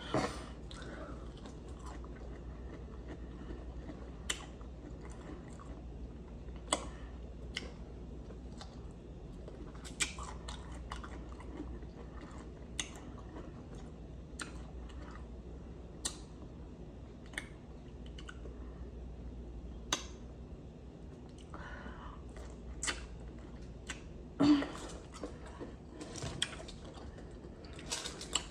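Close-miked chewing of breaded fried okra, with sharp crisp crunches every second or two over a faint steady low hum, and one louder mouth sound about 24 seconds in.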